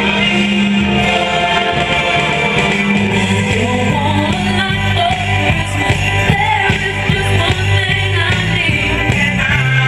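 Upbeat song with singing. A drum beat and a stronger bass come in about three seconds in.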